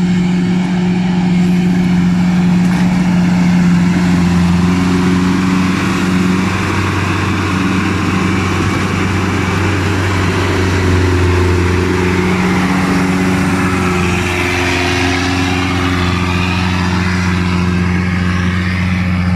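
Rice combine harvester's engine running steadily at working speed with a continuous drone. A deeper note swells in the middle stretch and fades again.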